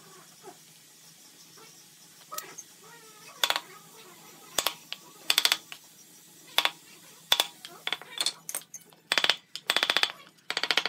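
Wooden mallet striking a wood chisel, chopping a mortise for a butt hinge into a wooden board. Single sharp knocks come about a second apart, then quicker runs of blows near the end.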